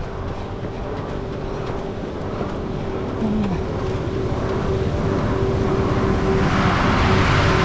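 A motor vehicle's engine running steadily, with a rushing noise building over the last second or two.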